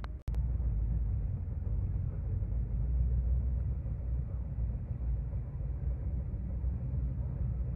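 Steady low rumble of a car engine, after the sound cuts out for an instant about a quarter second in.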